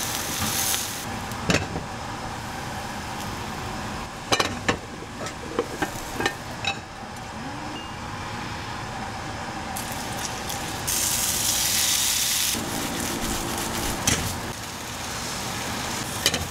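A chive and shrimp pancake sizzling in oil in a frying pan, with several sharp clicks and scrapes from a spatula. The sizzling grows louder for a second or so about eleven seconds in.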